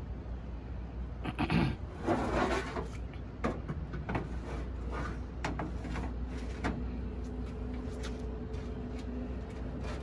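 Wire grill racks scraping and sliding into a metal cabinet smoker, with several sharp metallic clicks and knocks as they seat. A faint steady hum comes in about halfway.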